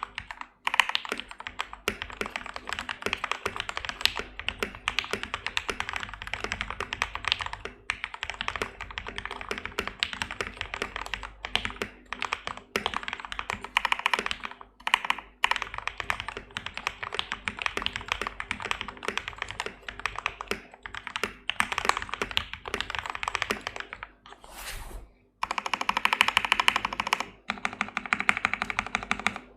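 Typing on a modded RK84 mechanical keyboard with lubed Gateron Milky Yellow linear switches, foam and tape mods: a fast, continuous run of keystrokes with short pauses about 15 and 25 seconds in, then a rapid, even run of keystrokes near the end.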